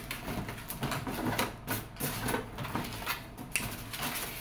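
Cardboard box being opened by hand: tape pulled off and flaps folded back, with irregular crackling and rustling of cardboard and packing material.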